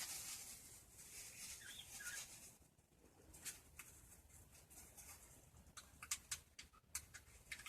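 Faint rustling of packing material for the first couple of seconds, then scattered light clicks and taps as the wrapping is handled and taken off the doll.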